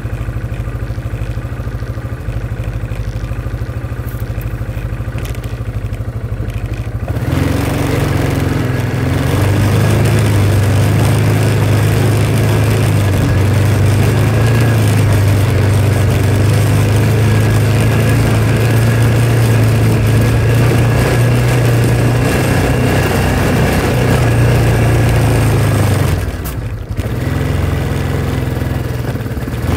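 A vehicle engine running at low speed, then picking up about seven seconds in and running steadily louder. It drops off briefly near the end, then picks back up.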